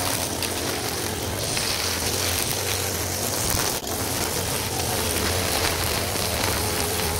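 Gas string trimmer running steadily at working speed, its line cutting grass and weeds. The sound dips briefly just before four seconds in.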